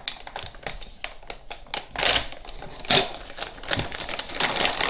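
Clear plastic bag crinkling and crackling as it is handled and pulled open, with sharper crackles about two and three seconds in.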